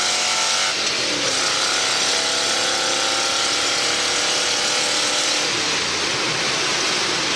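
1970 Boss 302 V8 in a 1976 Ford F100 pickup, heard from inside the cab over wind and tyre noise, pulling with its note rising in pitch. The note drops about a second in, climbs again, then eases off about five and a half seconds in, leaving mostly road and wind noise.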